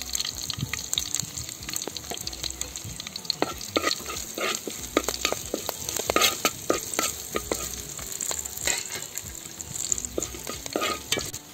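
A tempering of mustard seeds, garlic, curry leaves and dried red chillies sizzling in hot oil in a pan while a spoon stirs it, with many irregular sharp clicks and scrapes over a faint hiss.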